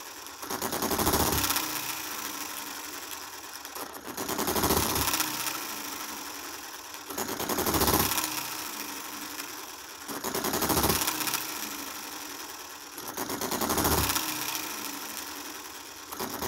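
Model hit-and-miss engine running: a run of firing strokes about every three seconds, with a fast mechanical clatter as it coasts between them. Its valves are freshly lapped, and it gives a little more power on the first firing after each miss.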